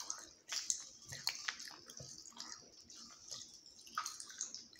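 Pop Rocks popping candy crackling as it is eaten: a steady fizz of many small, irregular pops, with a few sharper pops among them.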